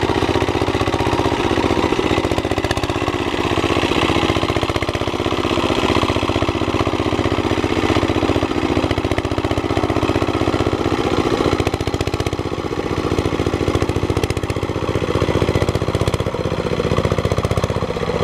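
Two-wheel walking tractor's single-cylinder diesel engine running steadily with a rapid, even chugging while its cage wheels churn through paddy-field mud.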